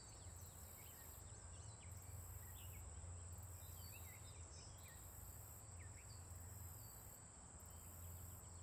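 Faint outdoor ambience: a steady high-pitched insect drone with scattered short bird chirps over a low hum.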